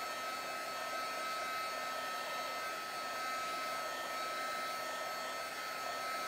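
Handheld craft heat tool blowing steadily, a rush of air with a constant high whine, drying paint on a sketchbook page.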